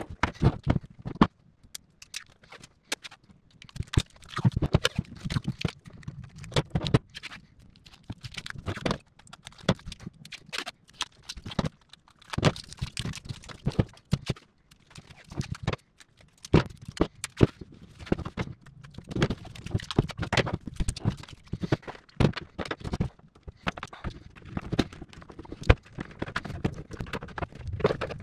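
Irregular clicks, taps and knocks from handling work on a workbench: wires, tools, a taped battery pack and a plastic case being picked up, set down and fitted together.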